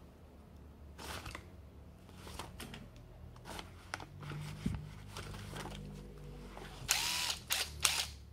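Makita cordless stick screwdriver being drawn from a tool-belt holster with light clicks and rustling, then its motor spins up in a few short whirring bursts near the end.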